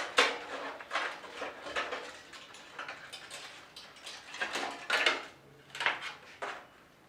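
Parts of a mid-tower PC case being handled: irregular clicks, knocks and rattles of hard parts, with the loudest knocks just after the start and around five to six seconds in.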